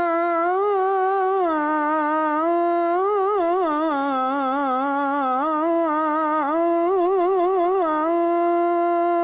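Muezzin chanting the Fajr adhan, drawing one long unbroken phrase out on a single breath. It moves through quick wavering melismatic turns in the middle and settles on a long level note near the end.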